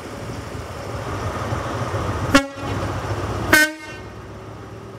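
Class 43 HST diesel power car sounding two short blasts on its horn, a lower note about two and a half seconds in and a slightly higher one a second later. Underneath is the low rumble of its engine.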